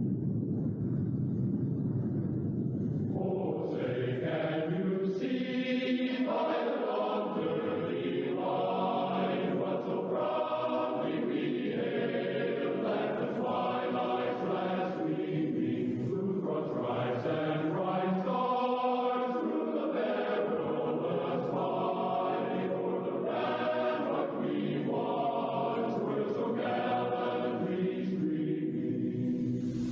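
A low rumbling noise, then from about three seconds in a choir singing a slow national anthem in long phrases.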